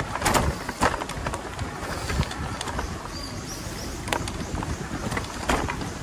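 Yamaha YPJ-TC electric-assist bike jolting over a rough, rooty trail: irregular sharp knocks and rattles of the frame and drivetrain over a low rumble of tyres and wind.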